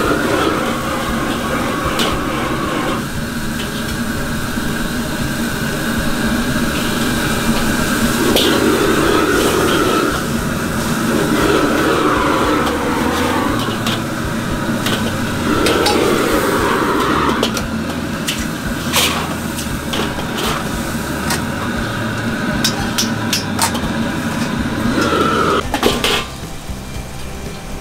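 Chinese restaurant wok station: a high-pressure gas wok burner running steadily under a steel wok while a metal ladle repeatedly clangs and scrapes against the wok as greens are stir-fried. The overall sound suddenly gets quieter about a second and a half before the end.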